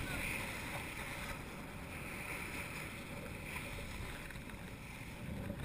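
Steady wind rumbling on the microphone with water washing against a sailboat's hull.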